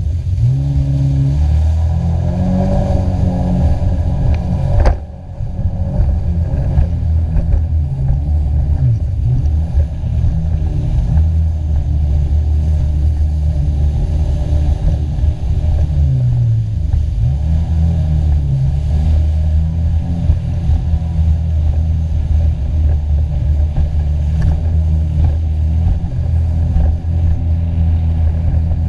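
Jet ski engine running at high speed, its pitch rising and falling as the throttle changes. There is a sharp knock about five seconds in.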